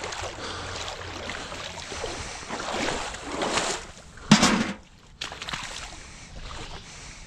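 Rustling and crunching of dry grass and brush underfoot as he moves along the bank, with one sharp knock about four seconds in, near the bucket.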